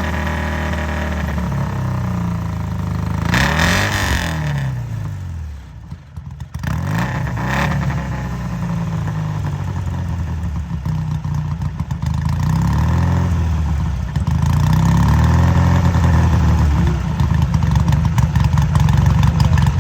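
1961 BSA 650's air-cooled parallel-twin engine running after a rough start, blipped several times so the pitch rises and falls. It dips away about five seconds in, picks up again, and runs louder over the last few seconds.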